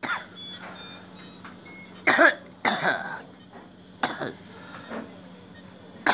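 A woman coughing in short fits, five coughs spread over a few seconds.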